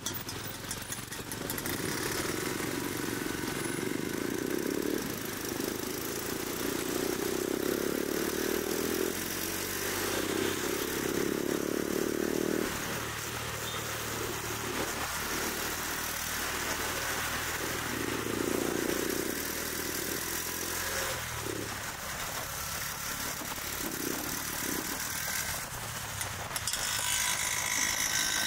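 Motor scooters riding past in city street traffic, their small engines running, over a steady hum of traffic, with a drone that shifts every few seconds as different scooters go by.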